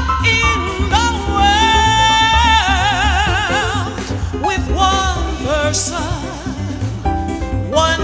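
A woman singing a slow ballad with instrumental accompaniment, holding long notes with a wide vibrato.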